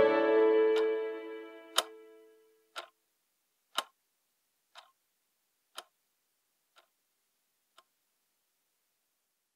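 Sustained music notes fade out over the first two seconds, leaving a clock ticking once a second. The ticks grow fainter and stop about two seconds before the end.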